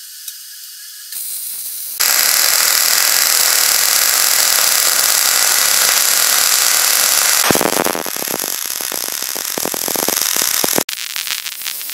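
MIG welder arc on a stainless steel column, a loud steady sizzle that starts abruptly about two seconds in and turns into a rapid crackle later on.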